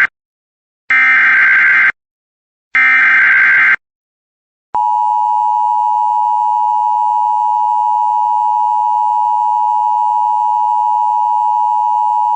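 Emergency Alert System header: the end of one burst of SAME data and then two more warbling digital bursts, each about a second long and a second apart. About five seconds in, the two-tone EAS attention signal starts, a loud steady dual tone that keeps on. Together they mark the start of a broadcast tornado warning.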